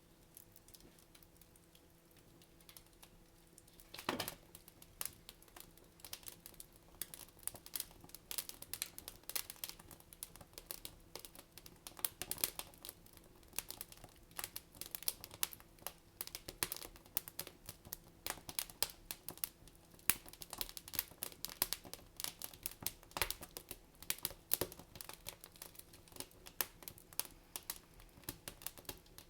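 Wood fire crackling in a fireplace, irregular snaps and pops of burning logs. It is sparse at first, with a louder pop about four seconds in, then crackles densely and steadily.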